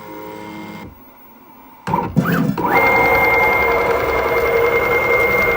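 A small CNC router's axis drive motors whining as the machine moves on its own during an automatic touch-probe routine. After a quieter hum and a short lull, there is a brief up-and-down whine, then a longer move where the whine climbs to a steady high pitch, holds, and falls away right at the end.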